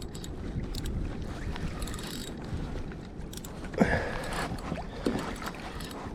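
Wind on the microphone and sea water moving around a plastic kayak, a steady noise, with a short louder burst about four seconds in.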